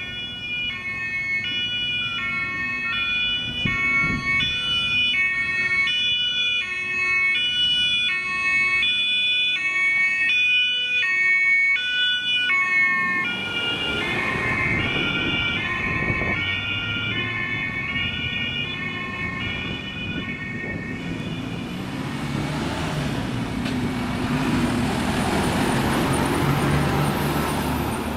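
German two-tone emergency sirens alternating between two pitches: first a fire engine's, then about halfway a second two-tone siren at different pitches. Vehicle engine and tyre noise builds as the vehicles drive past, loudest near the end.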